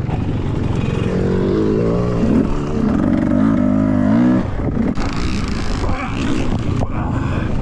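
Beta 300 RR two-stroke dirt bike engine running under the rider, its pitch rising and falling with the throttle for the first few seconds, then a rougher, choppier sound with knocks from about the middle on.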